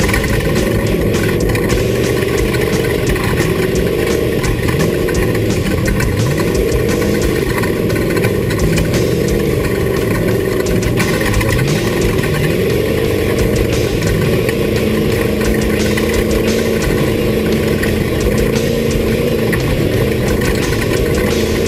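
Off-road race vehicle's engine running hard, its pitch rising and falling again and again with the throttle, over a steady rush of rattling noise.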